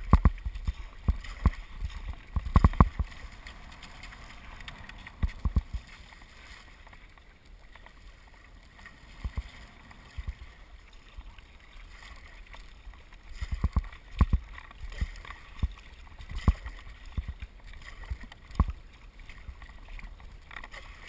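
Kayak on the sea being paddled, with water splashing and irregular sharp knocks and thumps, thickest in the first few seconds and again in the second half, with a quieter stretch between.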